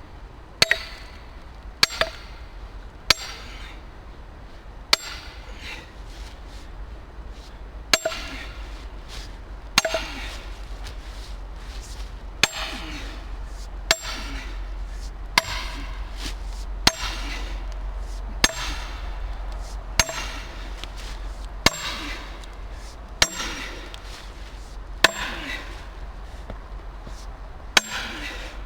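Axe chopping wood: about sixteen sharp strikes, roughly one every second and a half, each with a brief metallic ring.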